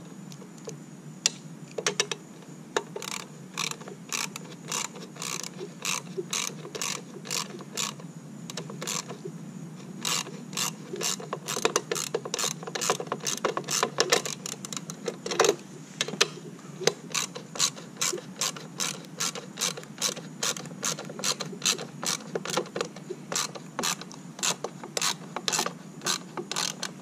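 A socket ratchet clicking in repeated short strokes as a 7/16 nut is run down on the bolt of a pool light's clamp ring, cinching the ring to press the seal in. The clicks are sparse at first and come quicker from about ten seconds in.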